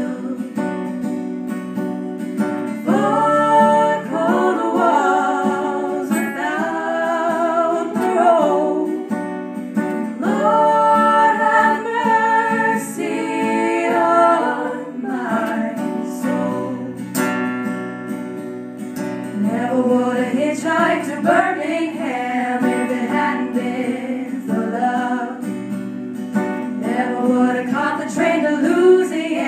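Live acoustic guitar strumming under women's voices singing with vibrato, heard through a small PA.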